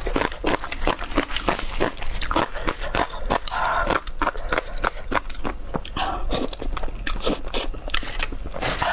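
Close-up eating sounds of chewing spicy cuttlefish and noodles: a quick, irregular run of sharp mouth clicks and smacks, several a second.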